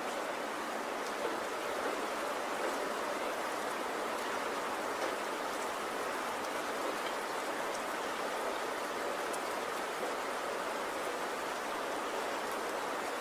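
Steady rain falling, a continuous even hiss with faint scattered drop ticks.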